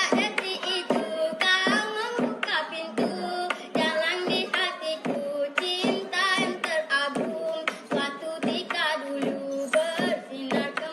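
A high voice singing a melody with wavering, sliding pitch, thin-sounding with no bass underneath.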